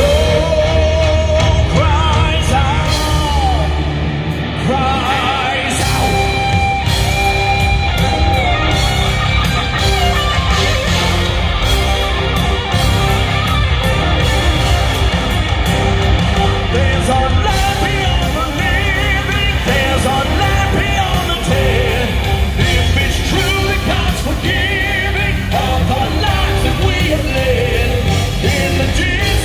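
Live heavy rock band playing loud through an arena sound system: an instrumental passage with drums and bass under a lead electric guitar holding notes with vibrato.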